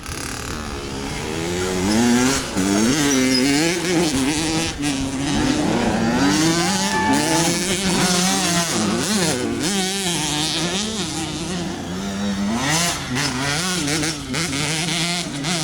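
Several off-road racing engines revving up and down as the machines race, their pitch rising and falling over and over and overlapping; the sound grows louder about two seconds in.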